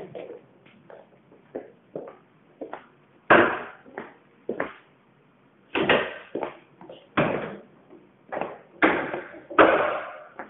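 A string of irregular sharp thuds and knocks, several loud ones with a short echo, in a bare hard-walled corridor.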